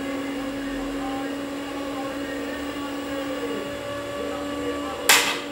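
A steady machine hum, with one short, sharp noise about five seconds in.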